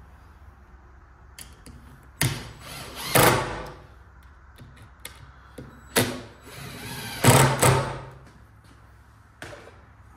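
Cordless drill driving two screws through a wooden spacer block into a wooden post. Each run lasts about one and a half seconds and grows louder toward its end, with faint handling clicks between them.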